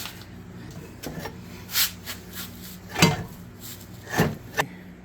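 Several short clunks and scrapes of tools and engine parts being handled during reassembly, the sharpest about three seconds in, over a steady low hum.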